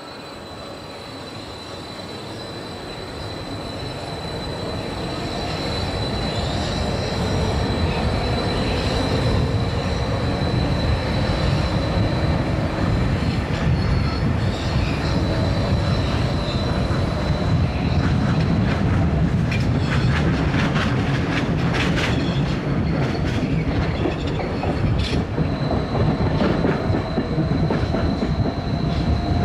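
An 11th-generation ISAP electric train pulling out of a station and picking up speed. Its motor whine rises in pitch as the running noise builds over the first several seconds. In the last third the wheels click quickly over rail joints, under a steady high ringing tone.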